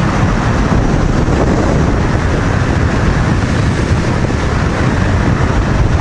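Honda VTR250 V-twin motorcycle cruising at a steady speed, its engine and road noise buried in steady wind rush on the microphone.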